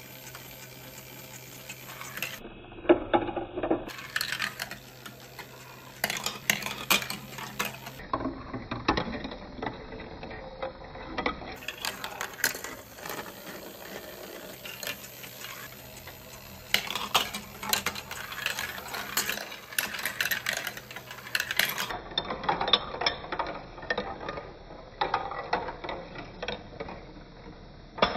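Plastic balls rolling and clattering down a plastic block marble run, through a clear spiral tower and along curved chutes, with irregular clicks and knocks as they drop between pieces. A faint steady hum from the motorized ball elevator runs under parts of it.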